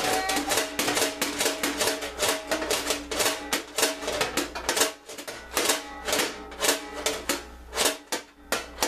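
Rapid banging on the steel frame of a metal-cutting band saw, about four blows a second, with the metal ringing between strikes, as parts are hammered into alignment during assembly.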